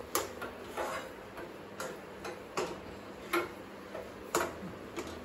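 Steel spoon clicking and scraping against a steel kadhai while stirring thick peanut halwa that has begun to leave the sides of the pan, the sign that it is done. A sharp click comes about once a second.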